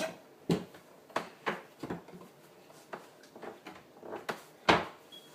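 Kitchen cabinet doors and drawers being opened and shut, with a string of separate knocks and clatters, the loudest near the end.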